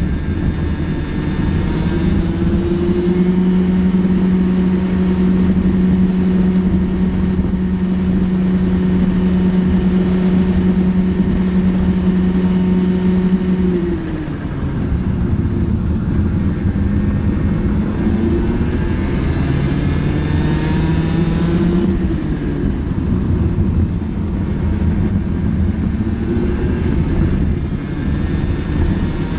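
Racing kart's two-stroke engine heard from onboard at full race pace. It holds a steady high pitch flat out along a straight, drops sharply under braking about halfway through, then climbs and falls again through the next corners, with two more dips near the end.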